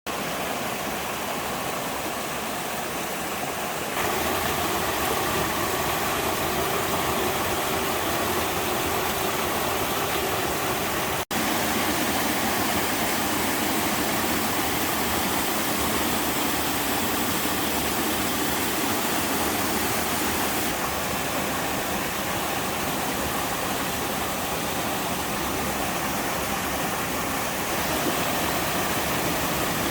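Water of a seven-tier waterfall pouring down between rock walls: a steady rushing noise that steps up in level about four seconds in and drops out for an instant about eleven seconds in.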